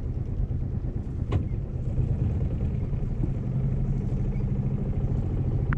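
Yacht's inboard engine running steadily under way, a low even hum, with a sharp click about a second and a half in and another near the end.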